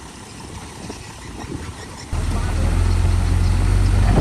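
Heavy construction machine's diesel engine running. It is moderate at first, and about halfway through it jumps suddenly to a much louder, deep, steady engine sound.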